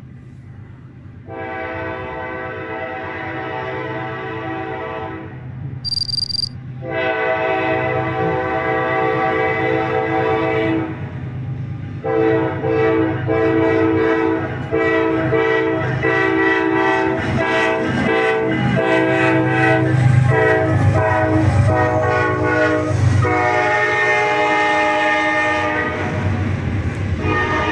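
A diesel freight locomotive's air horn sounds a series of long blasts as the train approaches. The last blast is held with short breaks while the train passes, over the low rumble of the engine. From about halfway on, steel wheels click over rail joints as the cars go by. A brief high beep is heard about six seconds in.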